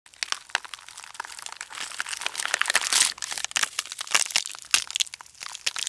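Flesh sound effect: meat being crushed and torn, a dense run of sharp crunches and crackles that is loudest about three seconds in.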